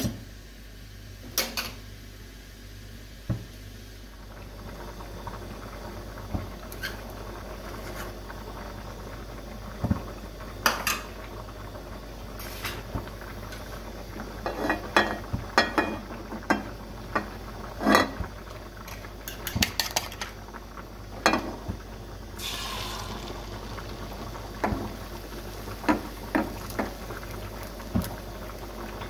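A metal cooking utensil knocking and clinking against a pan at irregular intervals, more often in the second half, over a steady background hiss.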